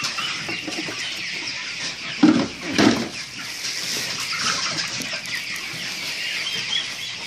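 A crowded flock of young chickens peeping and clucking, many short high calls overlapping without a break. Two louder, brief sounds stand out a little after two seconds and again near three seconds in.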